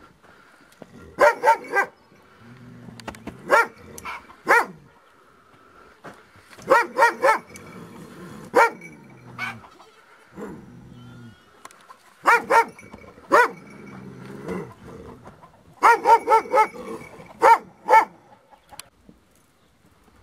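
A Sage Ashayeri, an Iranian shepherd dog, barking repeatedly in short bouts of one to four barks, about eighteen barks in all.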